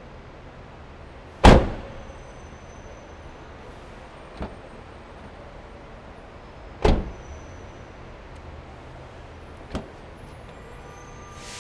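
A car door slammed shut twice, about five seconds apart, each bang echoing off the concrete of a parking garage. Between and after the slams come lighter clicks of the handle and latch as the door is opened again, over a steady low hum of the garage.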